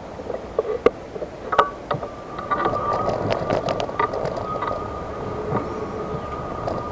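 Electric wheelchair driving: a steady motor whine comes in about a second and a half in, with scattered clicks and knocks over a noisy background.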